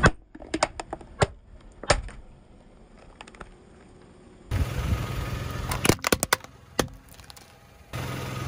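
A car tyre rolling over a thin toy plastic hard hat: a quick series of sharp plastic cracks and snaps in the first two seconds, then a lull. About halfway through, the low tyre and engine rumble comes back with a cluster of louder cracks a little past the midpoint and another single crack soon after, and the rumble starts again near the end.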